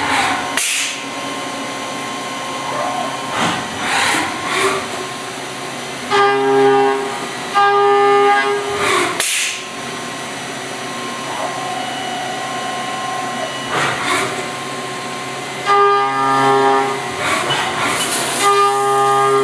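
Five-axis CNC mill's end mill taking finishing passes on a metal chess piece, with coolant spraying: a steady machine hiss under a pitched cutting tone that comes and goes in stretches of about a second as the cutter engages the workpiece.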